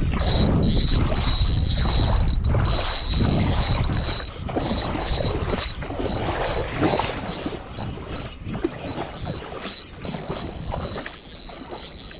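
Wind buffeting the microphone, heaviest in the first four seconds, over clicks and knocks of rod handling and a small spinning reel being cranked. A thin steady high whine runs under it.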